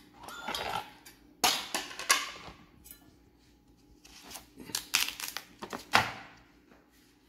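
Kitchen knife cutting a tender calabaza squash with a firm rind into pieces: softer scraping as the blade works through the flesh, and several sharp cracks as it breaks through, four loud ones in all.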